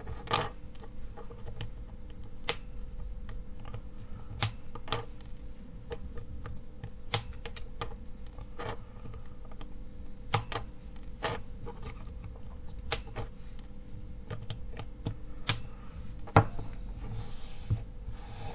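Flush side cutters snipping the excess component leads off the underside of a soldered circuit board: a sharp click every second or two, about a dozen in all.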